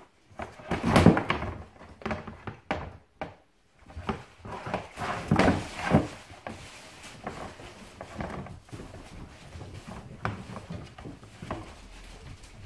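Six-week-old border collie puppy playing in a hard plastic dog bed, chewing and knocking a toy against the plastic: irregular thuds, scrapes and clatters, loudest about a second in and again around five to six seconds, then smaller taps.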